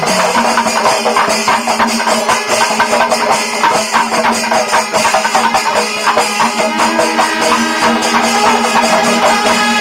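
Background music with dense, fast drumming and percussion over a steady held low tone.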